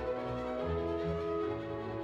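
Background music: held, sustained string notes that change pitch every half second or so over a pulsing low bass.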